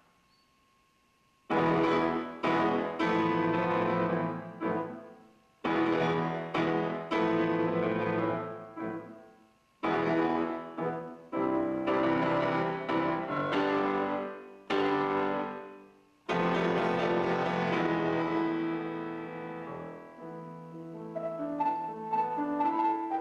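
Solo grand piano: after a pause of about a second and a half, loud full chords enter in phrases that stop and ring away about every four seconds. Near the end the playing turns softer and higher.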